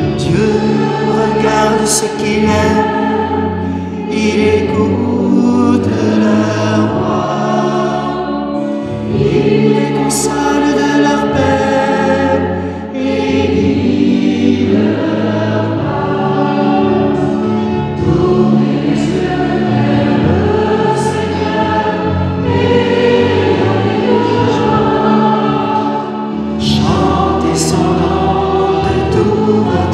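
A choir singing a slow hymn in held chords, the notes changing every second or two.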